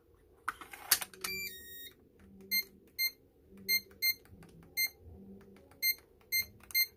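Evernet digital door lock keypad beeping as its keys are pressed one after another, a short beep for each press, after a brief run of tones from the lock about a second in. The beeps show the keys responding again after a dead-key fault was repaired.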